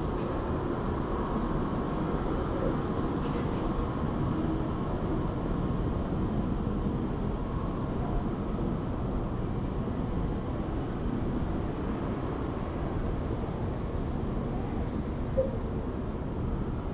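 Steady city street noise: a low, even rumble of traffic, with one brief click near the end.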